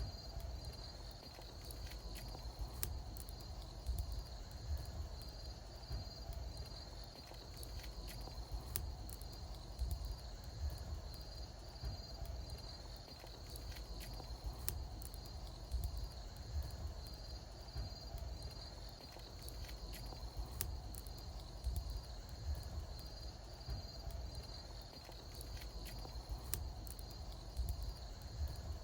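Wood bonfire crackling, with scattered sharp pops over a low rumble, while insects keep up a steady high-pitched pulsing trill.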